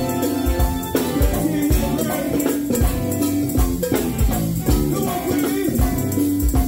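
Live go-go band playing: a steady drum beat of about two thumps a second, with tambourine and horns over it.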